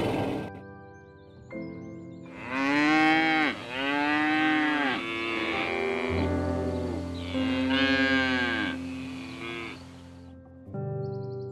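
A cow mooing: a run of about four or five drawn-out moos, each rising and then falling in pitch, over soft background music.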